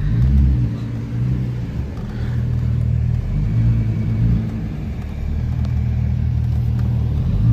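Volkswagen Jetta's VR6 engine running with a straight-piped exhaust, a deep rumble that swells and eases slightly.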